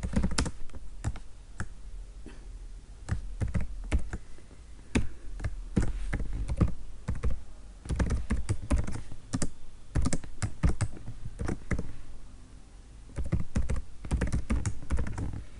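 Computer keyboard typing in irregular runs of keystrokes, with a brief pause about three quarters of the way through.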